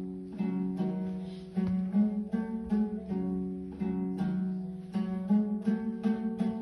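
Kazakh two-stringed dombra played solo in a traditional kui, strummed in quick repeated strokes: a held low note rings under a melody whose notes keep changing.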